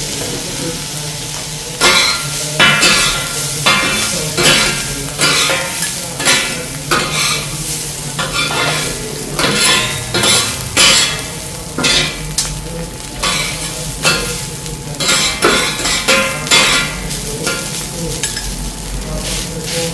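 Rice frying on a flat-top griddle, sizzling steadily, while two metal spatulas chop and scrape through it. From about two seconds in, the blades clack and scrape against the steel plate in a quick, uneven rhythm.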